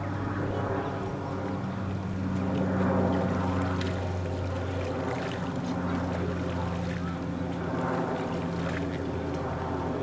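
An engine running steadily, a low, even droning hum.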